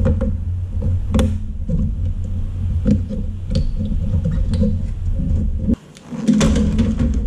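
Clicks and light knocks of computer parts being handled inside a steel PC case, over a steady low rumble.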